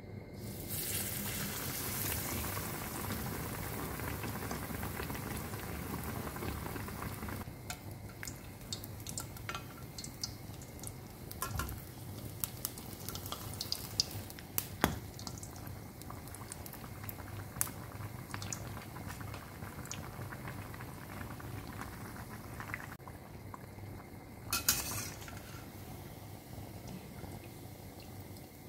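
Batter-coated bread slice (bread pakoda) deep-frying in hot oil in a steel pan. Loud sizzling starts as it goes into the oil and eases after about seven seconds. A few sharp clicks of a spatula and spoon against the pan follow, and there is a brief surge of sizzling near the end.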